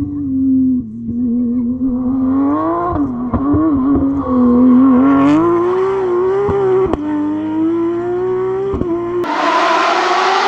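Porsche 911 GT3 Cup's flat-six racing engine running hard, its revs rising and falling, with several sharp cracks along the way. Near the end the engine note gives way to a louder rushing noise.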